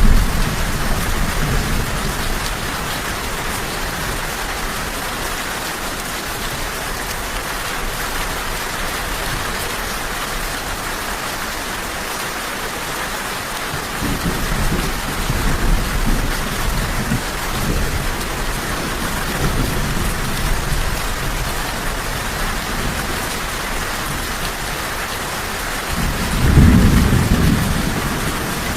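Steady rain falling, with thunder: a low rumble rolls in about halfway through and a louder peal of thunder rumbles near the end.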